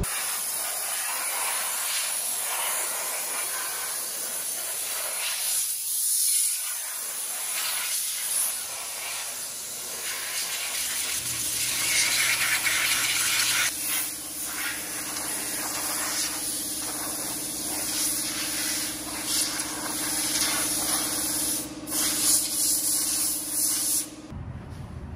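Compressed-air blow gun hissing as it blasts water off a car's wheel and bodywork, surging and easing as the nozzle moves. A steady low hum joins about eleven seconds in, and the air cuts off abruptly about a second before the end.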